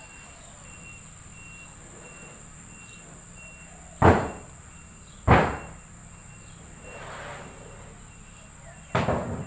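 Three loud, sharp knocks, about four, five and nine seconds in, over a faint high chirp that repeats evenly about twice a second.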